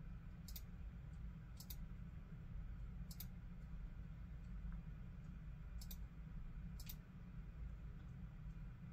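Five light, sharp clicks at uneven intervals, most of them doubled like a button's press and release, over a low steady hum.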